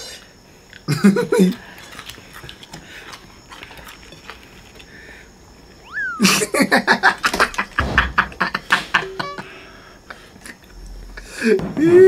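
A man laughing in a rapid string of short bursts for a couple of seconds past the middle, and again at the end. In the quieter stretches there are soft clicks and crunches of people eating.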